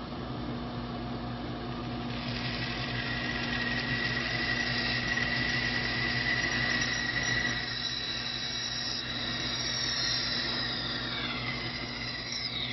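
Electric saw running and cutting a curve in wooden molding, with a steady motor whine. Near the end the motor pitch falls as it winds down.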